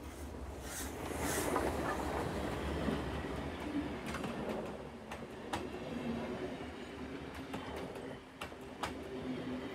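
Steam-hauled train running along the track: a steady rumble with rattling and scattered sharp metallic clicks, and a short hiss about a second in.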